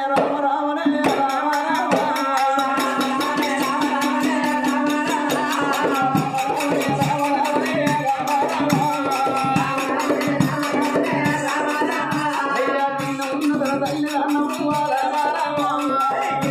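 Live Telugu Oggu Katha folk singing with a drum and rattling percussion keeping a fast, steady beat; the percussion comes in more sharply about a second in.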